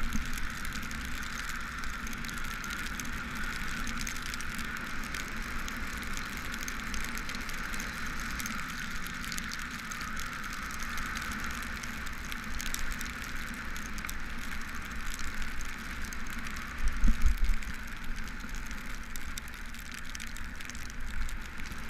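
Steady hiss and rumble of a cargo bike rolling on wet pavement in the rain, with wind on the camera and scattered faint raindrop ticks. A brief louder low rumble comes about three-quarters of the way through.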